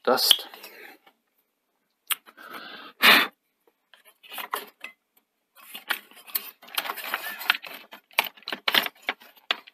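Metal parts of an opened VCR being handled: the sheet-metal chassis, shields and heatsink click, clink and rattle, with a short burst of noise about three seconds in and a denser run of clicks in the last few seconds.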